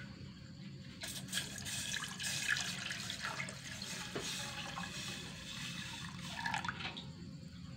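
Water running from a tap and splashing as herb leaves and roots are rinsed. It starts suddenly about a second in and stops about six seconds later.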